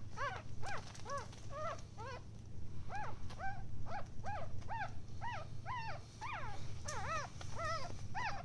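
Newborn Maltese puppies crying: short high squeaks that rise and fall in pitch, about two a second, several pups at once so some cries overlap, over a steady low hum.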